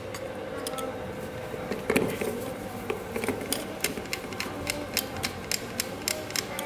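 Irregular sharp clicks and taps of tools and small metal parts being handled as a table fan's motor coil is taken apart, with a louder knock about two seconds in.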